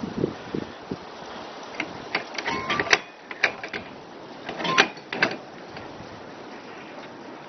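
Metal clicks and rattles, with a brief squeak, from a vintage camper trailer's hinged aluminium awning window and its prop arm being handled, in two clusters about two and five seconds in.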